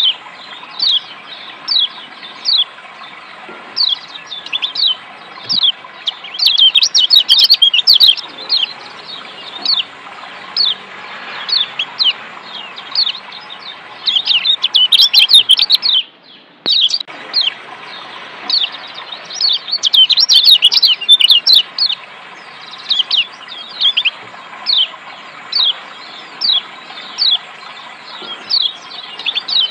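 Yellow white-eye (kecial kuning, a Zosterops) calling: short high chirps that slide downward, about one a second, breaking into quick dense chattering runs several times. Under the calls runs a steady hiss of running water. The sound drops out for about half a second a little past the middle.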